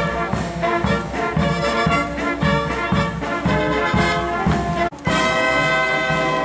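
Military band of saxophones, clarinets and brass playing over a steady beat. About five seconds in, after a brief break, the band holds a long sustained chord.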